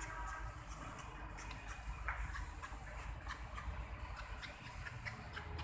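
Repeated short scraping strokes of a peeler blade shaving strips off a large raw carrot, about two or three strokes a second, over a low background rumble.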